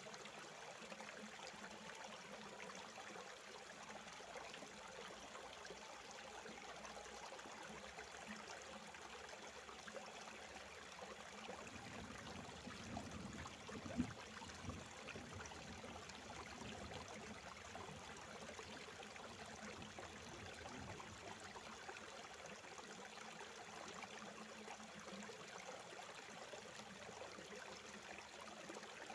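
Shallow river running over rocks, a faint steady rush of water, with a single sharp knock about halfway through.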